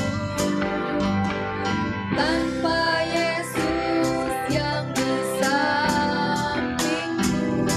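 Live worship band: a woman singing an Indonesian worship song into a microphone over electric bass, keyboard, electric guitar and drums, with cymbal strokes on a steady beat.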